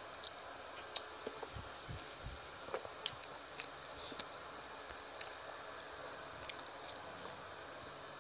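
Close-miked eating sounds: a mouthful of rice being chewed, with scattered short wet smacks and clicks, the sharpest about a second in and again past six seconds, while fingers mix rice on a plate.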